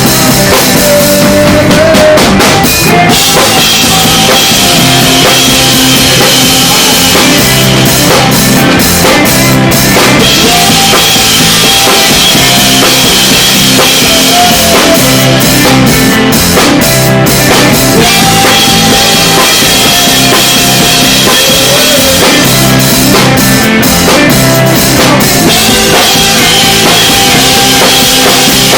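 Band playing a song live, with the drum kit loud and close: bass drum, snare and rimshot hits over held notes from the rest of the band.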